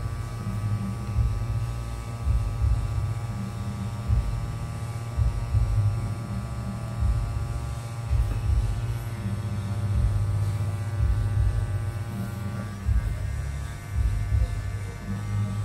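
Steady electrical hum with a faint whine of several steady tones, over an uneven low rumble.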